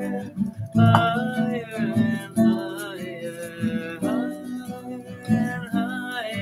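Acoustic guitar strummed in a steady rhythm, with a man's voice singing along over the chords.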